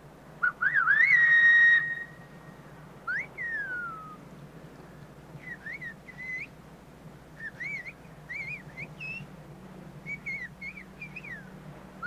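Silbo Gomero, the whistled language of La Gomera: one loud whistled call to a distant listener, rising and falling in pitch and then held. It is followed by a string of fainter, shorter whistled phrases that glide up and down.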